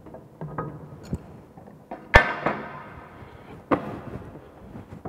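Metal tools and pipe fittings clanking during pipe work: a few sharp metallic knocks, the loudest about two seconds in ringing on briefly, with lighter knocks and handling noise around them.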